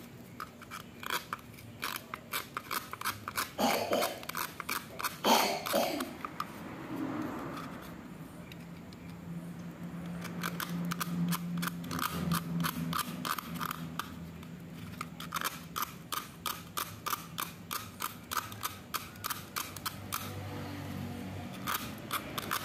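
Carbon rod from a dry-cell battery being scraped to a point: many short, dry scraping strokes in quick succession, a few a second.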